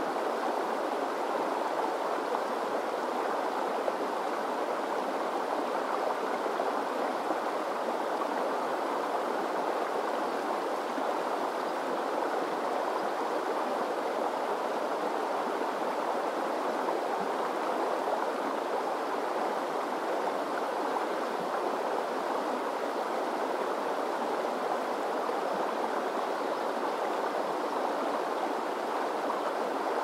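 Shallow mountain river flowing fast over rocks and riffles: a steady, even rush of water without distinct splashes.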